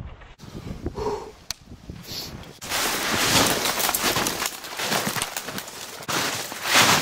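Footsteps crunching through snow and brush scraping past, loud and continuous from about two and a half seconds in, after a few quieter rustles and clicks.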